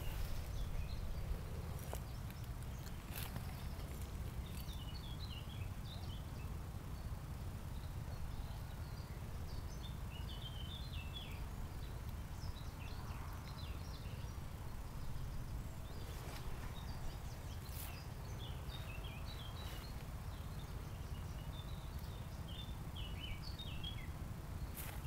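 Steady low rumble of wind on the microphone, with small birds chirping and twittering on and off in the background and a few light handling clicks.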